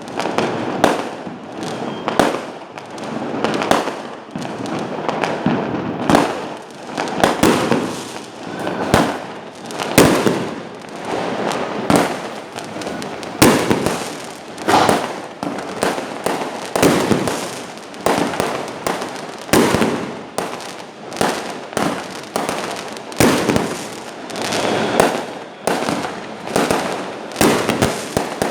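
Fireworks exploding in a continuous barrage: a dense, irregular run of sharp bangs, several a second, with louder booms every second or two.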